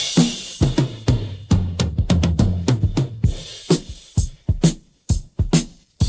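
Rock drum kit playing alone, a drum track separated by software from a 1970s studio mix: kick drum, snare and hi-hat in a busy groove. A cymbal crash at the start rings off over about a second. The hits grow sparser toward the end, with a brief drop-out near the close.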